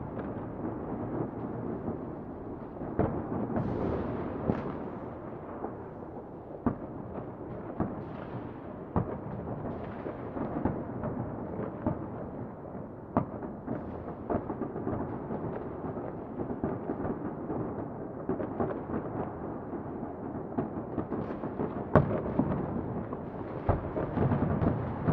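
Fireworks going off: a continuous rumble of distant bursts with many sharp cracks and pops at irregular intervals, the loudest crack about 22 seconds in.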